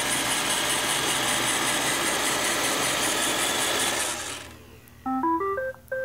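iRobot Roomba 650's motors running steadily as it drives onto its charging dock, then winding down and stopping about four seconds in. Just after, the Roomba plays a short chime of quick notes stepping upward in pitch, signalling that it has docked and started charging.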